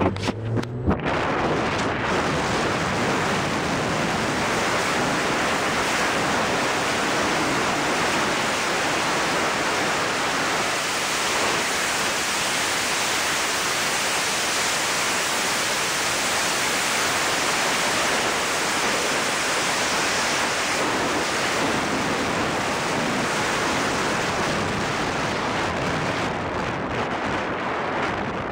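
Steady rushing wind noise on the microphone of a camera riding on a moving car, blended with road and tyre noise. A few sharp knocks come in the first second.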